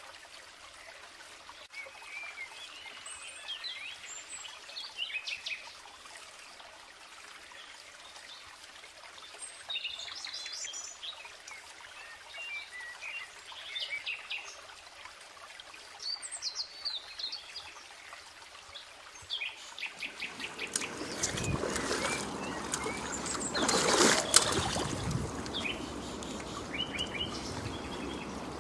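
Small birds chirping and singing. About twenty seconds in, louder water sloshing and splashing sets in, peaking a few seconds later, from a person in chest waders moving in shallow water.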